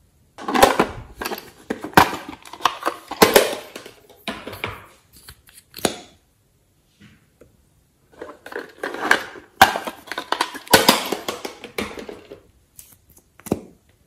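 Fingers pressing, poking and spreading glossy slime in a glass tray, making dense sticky clicks and squelches in two bouts with a short pause between them and one last click near the end.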